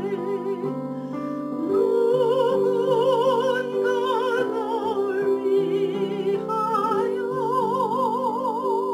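Soprano singing a slow Korean gospel song with wide, even vibrato over a sustained instrumental accompaniment, growing louder about two seconds in.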